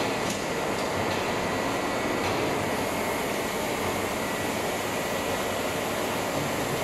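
An automatic paint-pail filling and lid-pressing line running, its machinery and powered roller conveyor making a steady mechanical noise with a faint high steady whine. A few light clicks come near the start.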